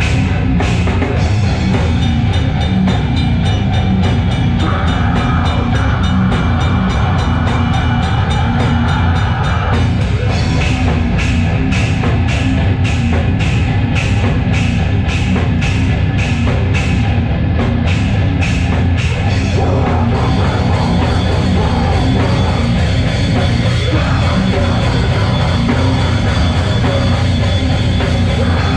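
A heavy metal band playing loudly live, with a drum kit and dense, distorted full-band sound. Fast, even drum and cymbal strikes run through much of it, and a denser wash of cymbals fills in about twenty seconds in.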